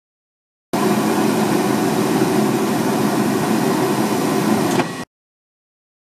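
Furnace draft inducer motor running steadily, a continuous whirring hum, starting abruptly about a second in and cutting off abruptly about a second before the end.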